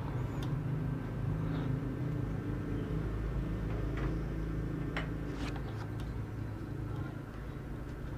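Steady low background hum with a few faint clicks and taps of small parts being handled, around the middle.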